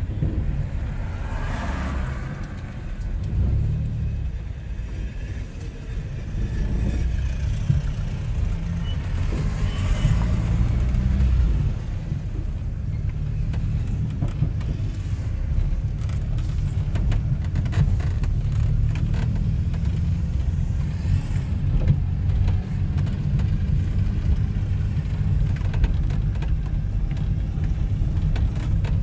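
A car driving along a road: a steady low rumble of engine and road noise.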